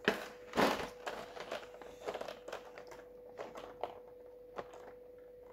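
Plastic miniature packaging being handled: two louder crackles about half a second apart at the start, then scattered small clicks and rustles that die away.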